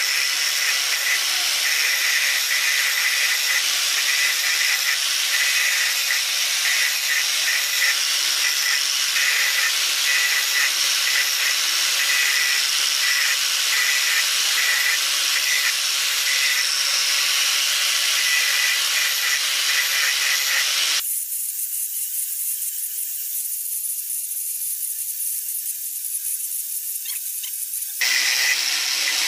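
Electric angle grinder running against steel, resurfacing the worn tips of diesel-engine rocker arms so the valve clearances can be set correctly. It is a steady whine with a harsh grinding hiss. For about seven seconds near the end it thins to a quieter high hiss, then the full grinding sound returns.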